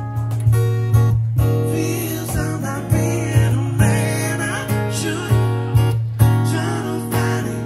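Acoustic guitar strummed live in a steady rhythm, with strong strums about twice a second over ringing chords.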